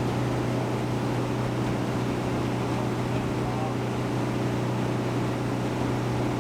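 Air-cooled VW bus flat-four engine pulling steadily at cruising speed, heard from inside the cabin as a constant drone with road and wind noise.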